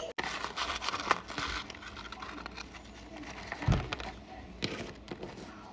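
Food-preparation handling sounds: rustling and crinkling with a few light clicks and one dull thump about halfway through.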